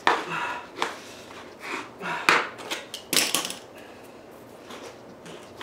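A wooden stir stick scraping and knocking inside a metal can, with a few sharp knocks and a quick cluster about three seconds in, as it pries out melted polyethylene that is stiffening in the cold.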